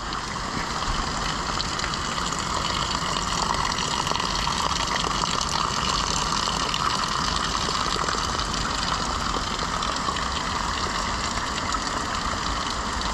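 Spring water pouring in a steady stream from the end of a trough spout and splashing onto the rocks below.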